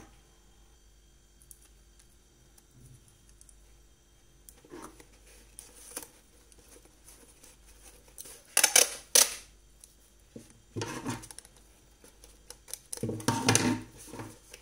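Paper being handled at a worktable, with three short bursts of rustling or handling noise between quiet stretches, the loudest a little past halfway through.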